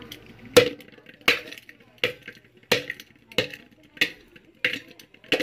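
A soft fired-clay brick fragment being pounded in a metal pot, about eight evenly spaced blows roughly one and a half a second. Each blow gives a sharp knock with a short ring from the pot, as the brick breaks into red crumbs.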